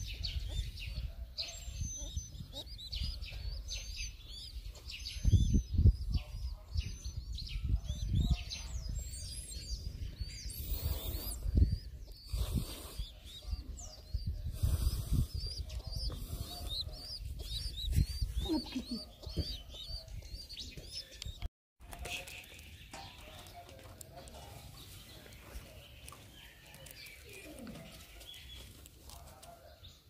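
Birds chirping, a quick run of short, high, rising chirps over a low rumble with occasional thumps; about two-thirds of the way through the chirping stops and it goes quieter.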